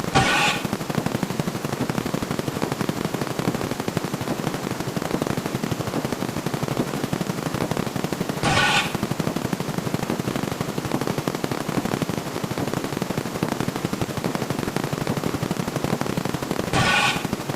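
Per-number counting sound effects played so fast that they merge into a dense, machine-gun-like stream of clicks. A short pitched tone sounds three times over it: at the start, about halfway, and near the end.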